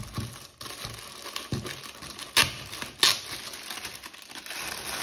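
Thin clear plastic bag crinkling and rustling as hands pull it off a computer power supply, with two sharper, louder crackles about halfway through.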